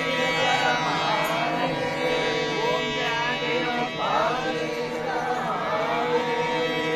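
Music: an ornamented melody, gliding up and down in pitch, over a steady drone.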